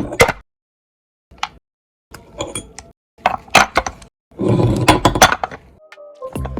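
Hard objects clinking and knocking together, like dishes or metal parts being handled: a sharp knock at the start, a gap, then scattered clinks and a short busier stretch of clattering with scraping about two thirds of the way through.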